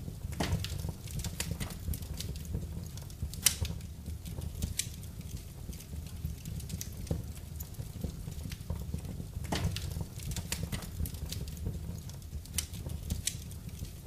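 Wood fire in a fireplace crackling and popping at irregular intervals over a low, steady rumble of the flames, with one sharper pop about three and a half seconds in.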